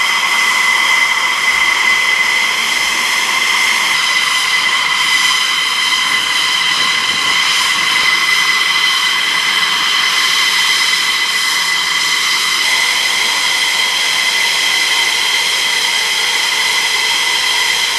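Steady high-pitched whine of aircraft turbine machinery, several steady tones over a hiss, holding constant without spooling up or down.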